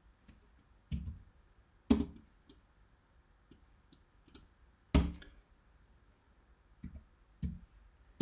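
Scattered keystrokes and clicks on a computer keyboard and mouse: separate sharp taps a second or more apart, the loudest about two and five seconds in.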